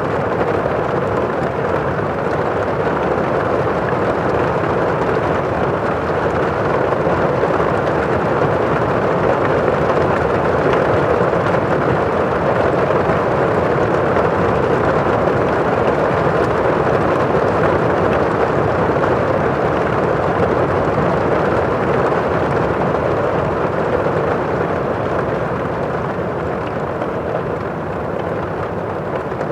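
Heavy rain falling on a roof, heard from inside the house: a dense, steady, muffled hiss with little high end.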